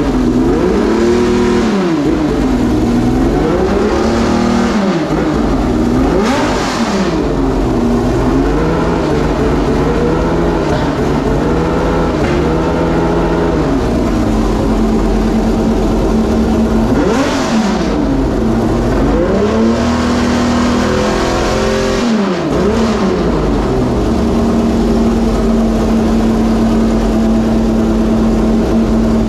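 Homemade V12 race engine running in the car, revved up and down over and over in throttle blips, then settling into a steady idle for the last several seconds.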